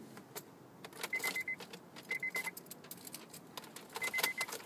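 Car keys jangling and clicking at the ignition as the car is being started. A car's high warning chime beeps rapidly in three short runs.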